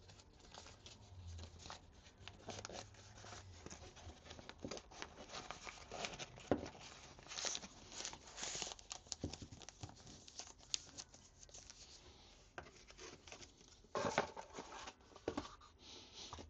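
Camera accessories being unpacked by hand: packaging rustling and tearing, with small irregular clicks and knocks of parts being handled.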